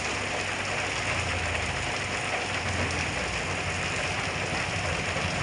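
Heavy rain pouring down steadily, a dense even hiss, with a low rumble underneath from about a second in.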